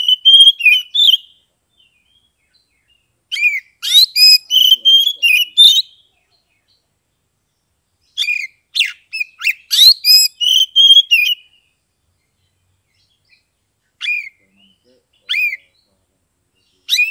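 Oriental magpie-robin (kacer) singing its loud, open 'ngeplong' song in bursts of quick whistled and chattering notes. There are three phrases of one to three seconds each with silent pauses between them, then two short single notes near the end.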